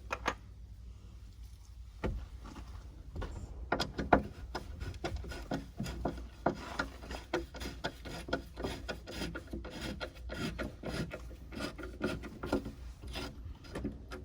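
Socket ratchet clicking in runs of quick, rasping clicks as a hinge nut on the hatch glass is worked loose.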